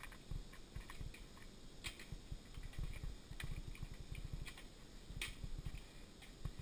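Mountain bike rolling over a rough dirt trail, picked up by a camera on the handlebars: a steady run of low knocks and rumble from the bumps, with a few sharp clicks and rattles from the bike.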